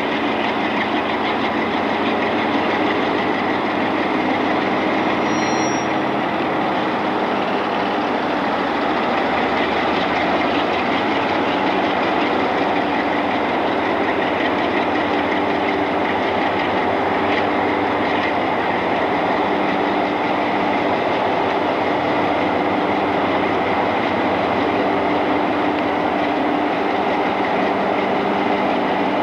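Diesel-electric locomotive engine running with a steady, loud drone as the locomotive hauls tank cars past, its exhaust smoking.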